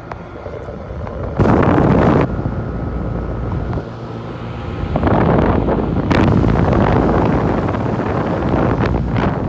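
1988 Tempstar air conditioner condenser running steadily, its Copeland reciprocating compressor and fan giving a constant hum with a few steady tones. Rushing air buffets the microphone in loud bursts, about a second and a half in and again from about five seconds on.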